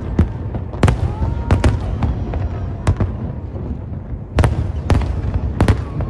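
Aerial fireworks shells bursting in an irregular series of sharp bangs, a dozen or so in a few seconds, over a continuous low rumble from the display.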